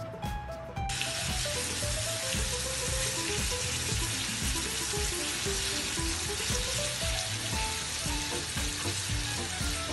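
Diced meat with onion and green chili sizzling as it fries in a pan, stirred with a wooden spatula; the sizzle comes in suddenly about a second in. Background music with a melody and a low beat plays under it.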